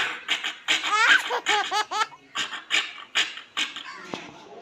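A child laughing hard: a quick run of high-pitched ha-ha bursts that dies away near the end.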